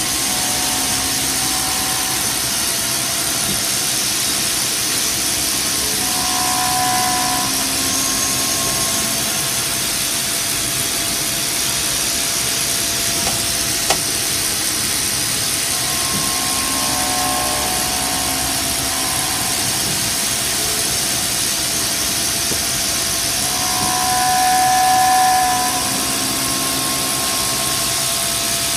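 CNC vertical milling machine running, its end mill cutting a linen phenolic part held in a rotary indexer: a steady hiss, with a humming tone that swells several times and is loudest near the end, and one sharp click about halfway through.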